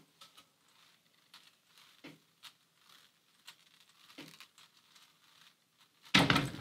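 Faint scattered clicks and taps of parts being handled during motorcycle front wheel assembly, then a louder thump near the end.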